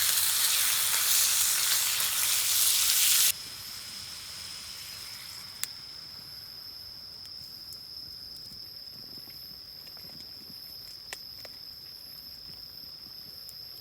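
Sukiyaki frying in a pan: a loud, even sizzle that cuts off suddenly about three seconds in. After it comes a much quieter stretch with a steady high-pitched tone and two faint clicks.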